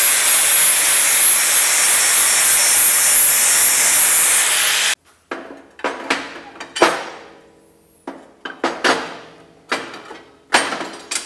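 Angle grinder grinding the end of a steel flat-bar slat for about five seconds, cutting off abruptly. Then a series of sharp metallic clanks with short ringing as the steel slats are dropped and set into the slots of the cutting table's frame.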